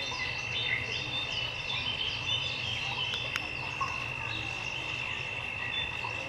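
Insects trilling in one steady high, unbroken drone, with short repeated higher notes and scattered chirps over it. There is one sharp tick a little past halfway.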